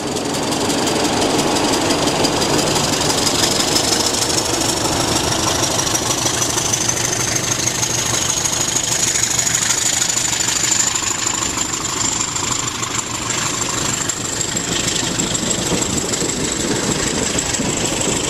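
Engine idling steadily, with a thin high whine that slowly rises in pitch over the first ten seconds or so and then holds.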